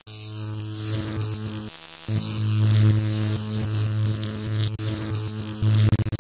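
Loud electric buzzing hum with crackle, like a neon sign or live wire, that drops out briefly about two seconds in and stutters on and off near the end.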